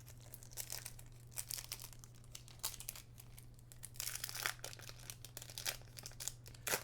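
Irregular crinkling and crackling of a foil trading-card booster pack wrapper being handled and opened.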